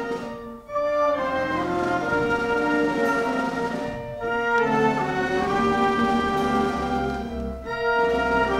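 Orchestral music accompanying a silent stage comedy, playing held chords in phrases with short breaks between them, about half a second in, around four seconds in and near the end.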